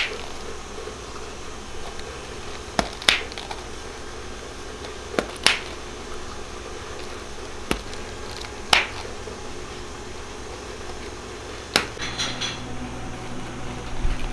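Clear plastic dome-lidded cups being set down and handled on a tabletop: sharp plastic clicks and taps every second or two, some in quick pairs, with a flurry of smaller ticks near the end, over a steady low hum.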